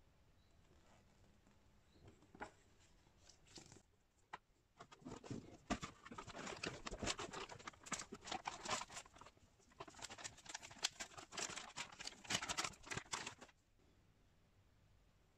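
Plastic packaging crinkling and crackling as it is handled: a few scattered clicks, then about nine seconds of dense crackling that stops suddenly near the end.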